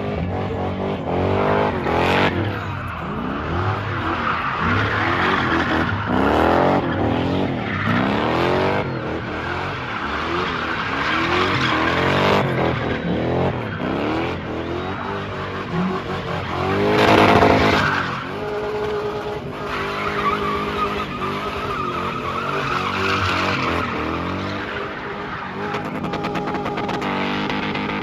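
Car spinning doughnuts on smoking tyres: the engine revs up and down again and again in rising and falling sweeps, with tyre squeal. The hardest rev comes about two-thirds of the way through.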